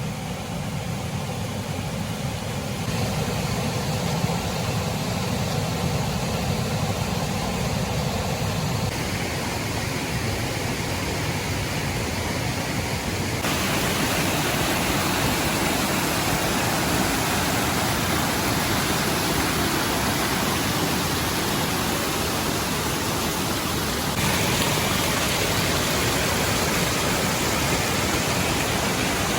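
Steady rushing hiss that gets louder in a few steps.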